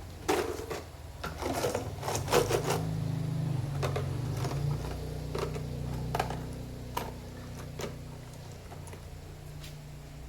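Sharp clicks and knocks of small parts being handled, thickest in the first few seconds, over a steady low hum.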